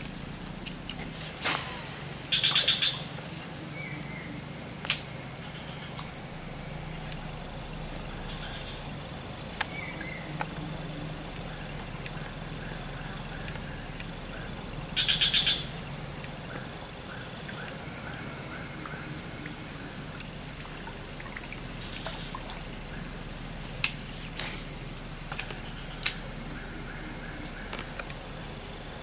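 Steady high-pitched drone of forest insects, with a pulsing texture. A bird's short trilled call comes twice, and there are a few sharp clicks.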